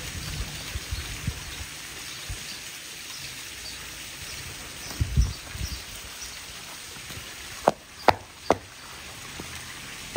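Heels of high-heeled boots clicking on pavement: three sharp clicks in quick succession near the end, over a steady outdoor hiss. A dull low thump comes about halfway through.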